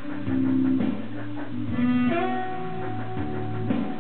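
Instrumental background music on string instruments, with held notes that change every half second or so.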